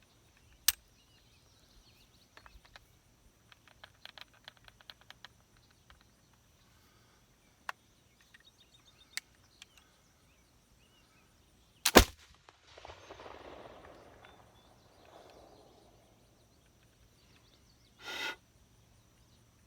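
Flintlock pistol, a Navy model 1733, handled with a scatter of light clicks and taps, then fired once: a single loud shot about twelve seconds in, followed by a few seconds of soft hiss.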